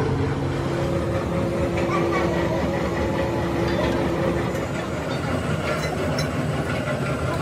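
Workshop machinery running with a steady drone and a couple of held tones. A few light knocks of steel being handled come in the second half.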